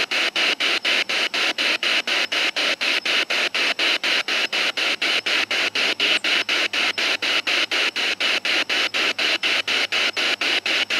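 Radio static chopped into a fast, even pulse of about five bursts a second, the sound of a spirit box sweeping rapidly through radio stations.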